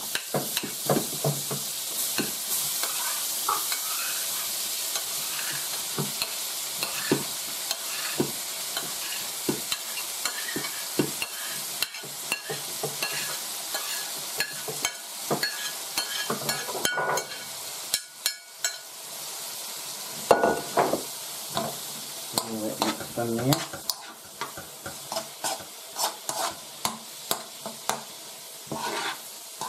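Diced shaggy ink cap mushrooms sizzling and frying in hot butter in a wok, as they are scraped off a plate and then stirred with a spoon. The sizzle is strongest in the first half, with many short spoon knocks and scrapes against the plate and pan throughout, settling into regular stirring strokes over the last few seconds.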